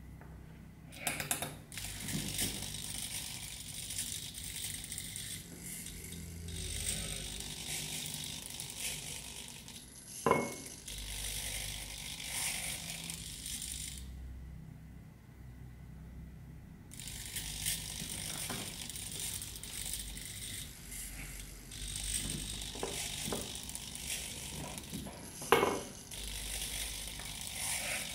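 Micro servo motors of an Arduino-driven robotic arm whirring and buzzing in spurts as the arm moves, stopping for a few seconds about halfway through. Two sharp knocks, about ten seconds in and near the end, the first with a short ring.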